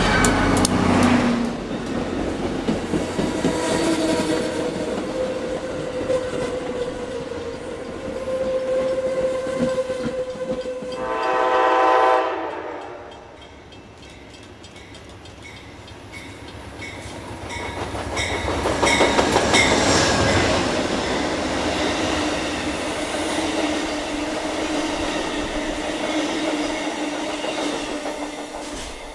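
A train passing, with the low rumble of its engine and the rolling noise of its wheels on the rails. A short horn blast comes about eleven seconds in, and then the rolling noise swells again with a run of regular wheel clicks over rail joints.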